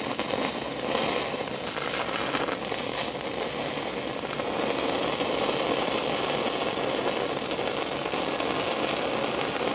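Stick-welding arc of an E6010 electrode running the root bead on steel pipe, a steady, unbroken arc noise.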